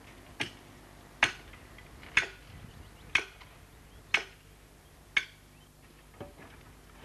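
Track workers' picks striking the stone ballast beside the rail: sharp impacts about once a second, seven in all, the first and last fainter.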